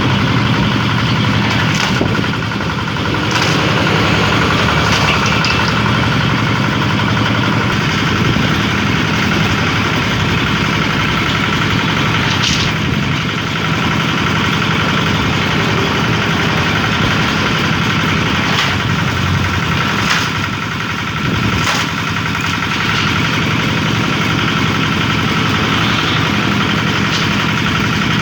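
Kubota 8.5 hp diesel engine running steadily as it drives a bamboo-splitting machine, with a few sharp cracks scattered through the run.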